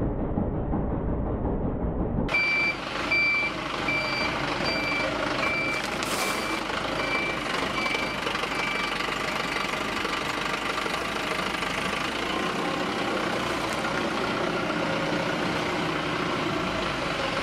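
A truck's reversing alarm beeps a little faster than once a second, then stops, over the steady running of the truck's engine. A low rumble comes before the beeping starts, about two seconds in.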